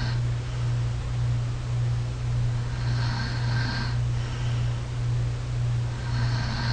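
A sleeping person's breathing and soft snoring from an overnight sleep recording, breaths a few seconds apart, over a steady low hum. The snoring is reduced while the PureSleep anti-snoring mouthpiece is worn.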